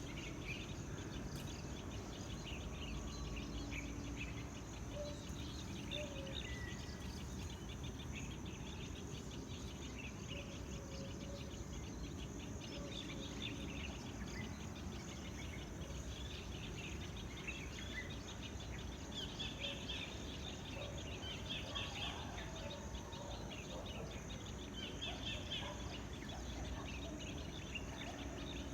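Tropical nature ambience: many birds chirping in short calls, busiest in the second half, over a steady high insect drone and a low background rumble.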